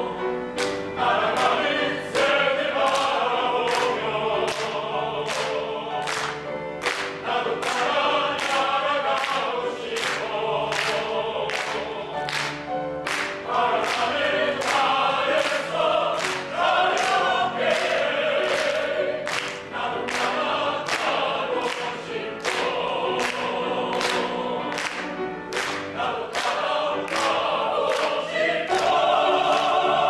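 Mixed choir singing a song in harmony with piano accompaniment, over a steady beat of sharp strikes; the choir swells to a loud held chord near the end.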